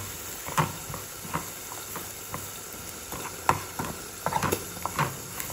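Metal spoon stirring sautéed collard greens and flaked corn flour in a nonstick frying pan: irregular scrapes and taps against the pan, over a faint sizzle.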